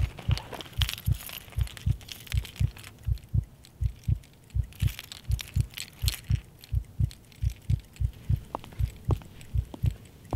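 A low heartbeat thump, about two and a half beats a second. A set of keys jingles briefly in a hand near the start and again around the middle.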